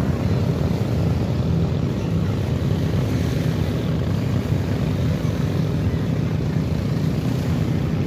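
Wind buffeting the microphone: a steady low rumble.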